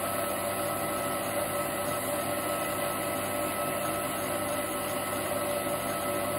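Small bench lathe running steadily, its motor giving a constant whine over a hiss, while an abrasive strip is held against the spinning fountain-pen part to grind and pre-polish it.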